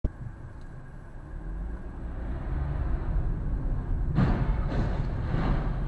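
Low, steady road and engine rumble of a car, heard from inside the cabin through a dashcam, slowly growing louder. From about four seconds in, several short, sharper noises rise above it.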